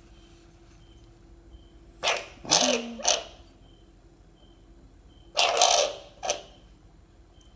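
Harsh, loud animal calls: three short cries about two seconds in, then two more about five and a half seconds in, over a steady background of insect chirping.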